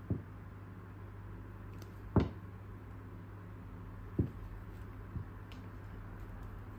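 Four short dull knocks, the loudest about two seconds in, over a steady low hum.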